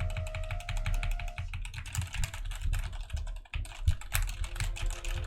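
Fast, continuous typing on a Tecware Phantom 87 mechanical keyboard: a rapid stream of clicky keystrokes, which the typist calls quiet and quite a nice sound.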